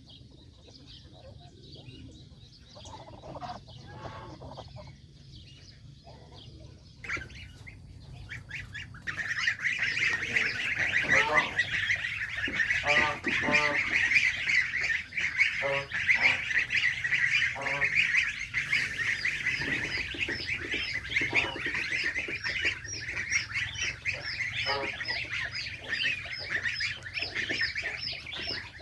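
Geese calling: a dense chorus of high-pitched gosling peeps that swells loud about nine seconds in, with bursts of lower honking calls from adult geese among them.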